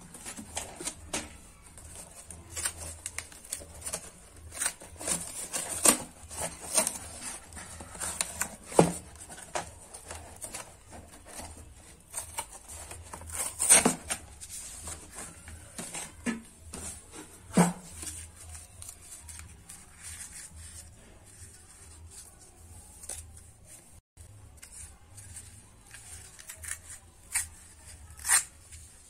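Corrugated cardboard being torn and its paper facing peeled off by hand: irregular crackling and scraping, with a handful of sharper, louder rips scattered through. A faint low hum lies underneath.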